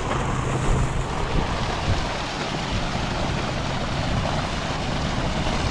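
Fire hydrant flowing wide open, water rushing out in a steady loud roar while it is flushed of dirt after a stem replacement, with a low hum underneath.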